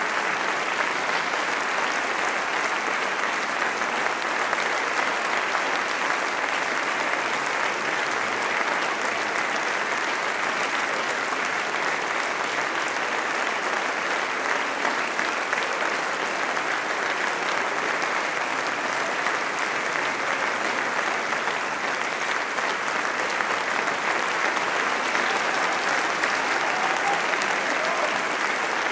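Audience and choir applauding: dense, steady clapping that holds at an even level throughout.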